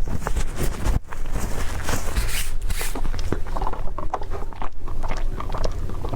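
Close-up eating sounds: someone biting and chewing food, with a run of short clicks and crunches over a low rumble.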